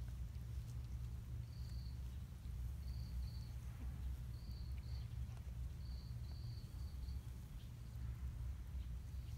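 Faint short high-pitched chirps, all at one even pitch, coming in pairs and threes every second or so over a low steady rumble.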